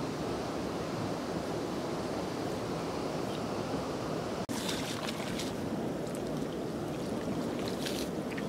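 Steady rushing outdoor wind noise on the microphone, breaking off for an instant about halfway through at an edit, then going on with faint crackling rustles added.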